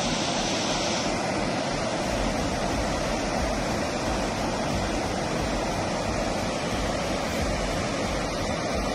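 Fast-flowing spring meltwater floodwater rushing over flooded ground in standing waves: a steady, even rushing noise.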